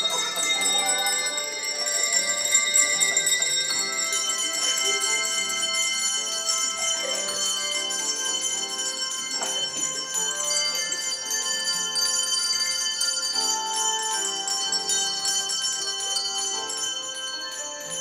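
A children's set of coloured handbells ringing out a tune, notes struck one after another and overlapping as each bell rings on.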